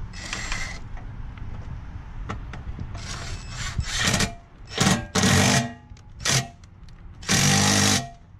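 A 20-volt cordless impact driver with a socket extension running in short bursts, about five in the second half, the last the longest, as it drives the intake airbox fasteners back in.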